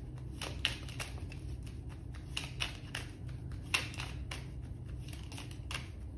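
A tarot deck being shuffled by hand: cards sliding and slapping against each other in an irregular run of soft clicks and rustles, with a few sharper snaps.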